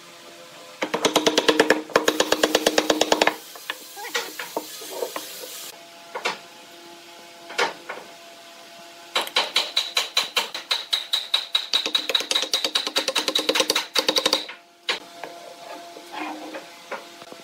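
Wooden table legs being knocked into glued mortises in a pine base with rapid, evenly spaced taps, about eight a second, in two runs: one about a second in, one from about nine seconds to fourteen. The wood rings with each tap, and a few single knocks fall in between.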